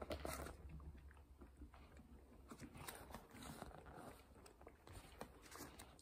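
Paper pages of a thick paperback book rustling as they are thumbed and flipped, loudest right at the start and again around the middle, with a few small clicks.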